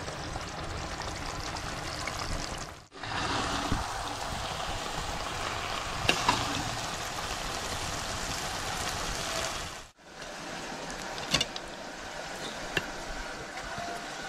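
Chicken sizzling and simmering in its own juices in a clay pot, a steady hiss, with a spoon knocking against the pot now and then. The sound drops out briefly twice, about three and ten seconds in.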